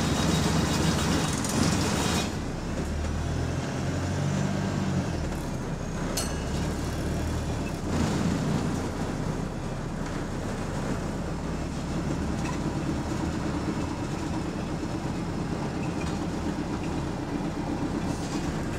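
Inside a city bus: its engine runs with the steady noise of the bus driving, and interior parts rattle along with the engine. The low engine note shifts in pitch several times between about two and eight seconds in, with a sharp click about six seconds in.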